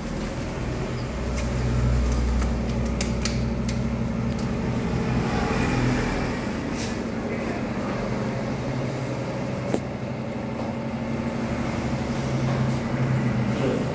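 Steady low mechanical hum indoors, with scattered sharp clicks and knocks, several between about one and a half and three and a half seconds in, and single ones near seven and ten seconds.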